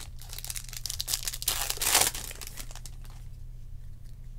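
2020 Topps Chrome baseball cards rustling as a stack is flipped through by hand, cards scraping and sliding over one another in quick small strokes. The rustle is loudest about two seconds in and dies away soon after.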